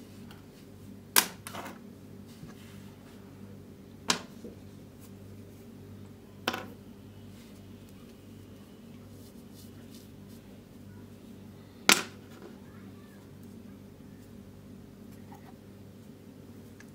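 Plastic toy sand tools set down one at a time on a wooden tabletop: four sharp clacks a few seconds apart, the first and last the loudest, over a steady low hum.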